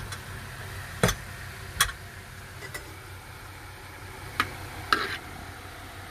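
About five sharp clicks or knocks at uneven intervals, over a steady low hum.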